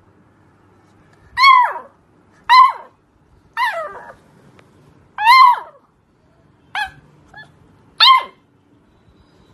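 Beagle puppy play barking: six short, high-pitched yapping barks spread over about seven seconds, each dropping in pitch at the end.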